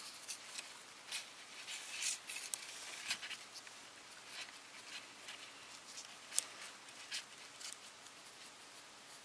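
Fingers handling and twisting thin wire leads together: faint, scattered rustles and small ticks, the sharpest about six and a half seconds in.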